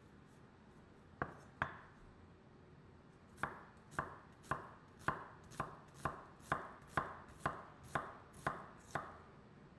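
Chef's knife dicing an onion on a wooden cutting board: two cuts about a second in, a pause, then a steady run of about a dozen chops, roughly two a second.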